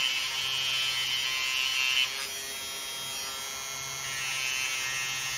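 Handheld rotary tool running with a small wire wheel brushing the side of a brass HO scale model locomotive wheel to scrub off tarnish. There is a steady motor whine under a scratchy brushing hiss that eases off about two seconds in and picks up again about four seconds in.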